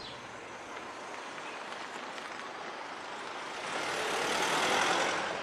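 Street traffic noise, then a car passing close by: its noise swells from about three and a half seconds in, is loudest near the end, and fades away.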